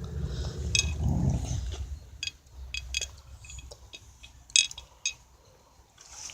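A dog eating a taco, chewing with a run of sharp wet smacks and clicks of its jaws, the loudest about four and a half seconds in.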